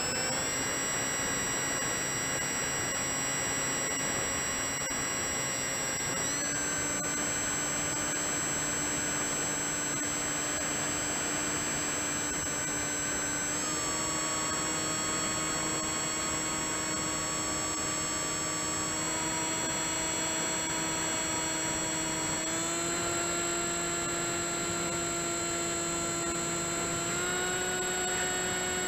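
Electric motor and propeller of an FMS Red Dragonfly RC model plane whining steadily in flight, heard from a camera on board, with a rushing noise underneath. The whine's pitch steps slightly a few times, ending a little higher than it starts.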